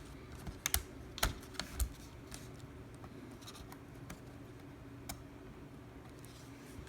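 Sharp plastic clicks and taps as a replacement laptop battery is set into a Dell Latitude 5400's chassis and its connector pushed into the socket: four clicks in the first two seconds, one more near the end, over a faint low steady hum.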